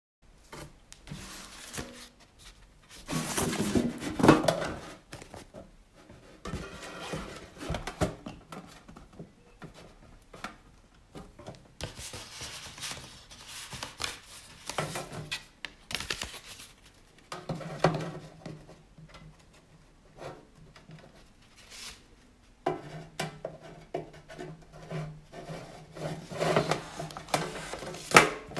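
Paper leaflets and a tin box being handled: irregular rustling and rubbing of paper, with small knocks and clinks of the metal box and lid. A low steady hum sits under it over the last several seconds.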